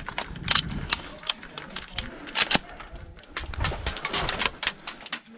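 Airsoft gunfire: a rapid, irregular run of sharp clicks and snaps, thickest toward the end, from guns firing and BBs striking nearby.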